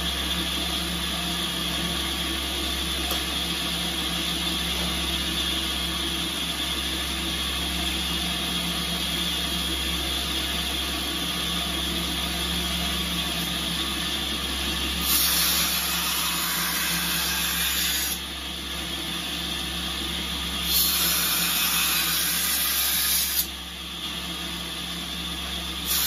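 2x72 belt grinder running steadily; about halfway through, and again a few seconds later, the steel machete blade is pressed to the moving belt, two grinding passes that each add a loud hiss lasting two to three seconds.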